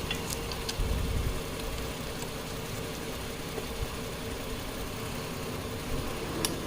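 A car engine idling steadily, with a few sharp clicks of hose fittings and tools being handled, one near the start and one near the end.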